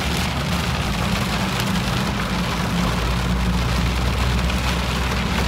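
Heavy rain drumming on a closed convertible roof, heard from inside the moving car over the low, steady drone of the engine and tyres.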